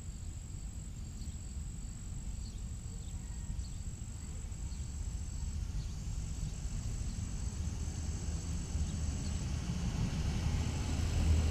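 Outdoor background noise: a steady low rumble that grows a little louder near the end, with a thin, steady high-pitched tone above it.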